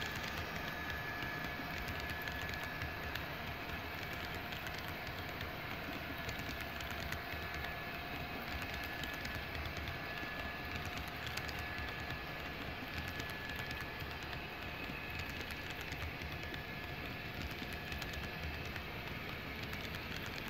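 HO-scale model grain hopper cars rolling past on layout track: a steady rumble of small wheels on the rails with many little clicks over the rail joints. A faint high whine comes and goes.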